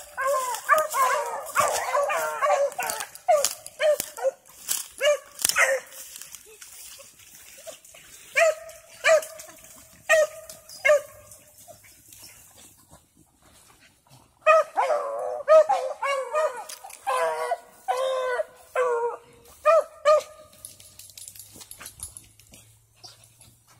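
Dogs barking and yipping in bouts, several voices overlapping: a dense burst in the first few seconds, scattered single barks, another burst in the second half, then quieting near the end.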